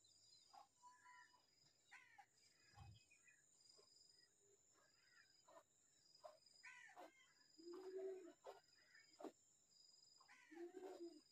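Faint outdoor animal sounds: small birds chirping with quick falling notes over a steady high insect drone with a regular pulsing note. Twice in the second half there is a short, lower call.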